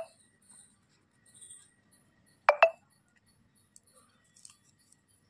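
Faint gritty rubbing as damp slate-pencil powder is rolled into a ball between the palms. A sharp double click sounds at the start and again about two and a half seconds in, louder than the rubbing.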